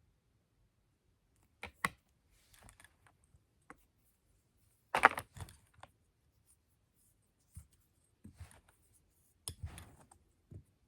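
Plastic drinking straws and straw connectors being handled and fitted together: scattered light clicks and rustles, with the loudest clack about five seconds in.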